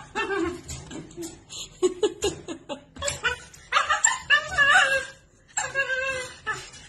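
Dog in a wire crate giving several short, wavering, high-pitched cries, the longest about four seconds in.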